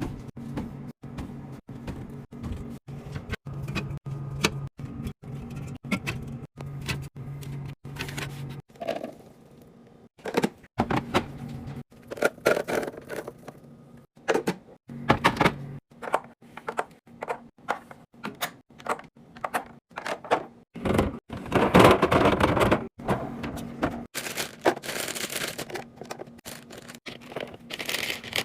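Knocks, taps and clatter of plastic containers and packaged food being set on fridge shelves and into bins, in short bursts that cut off abruptly. A low hum sits under the first eight seconds or so.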